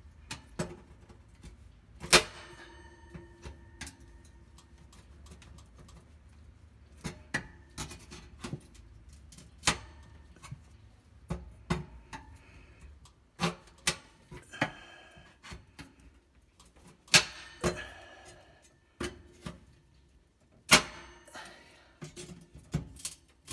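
Needle-nose pliers clicking and clinking against the metal oven light socket and oven cavity at irregular intervals. A few louder clinks ring briefly, as the last spring clip holding the socket is pried loose.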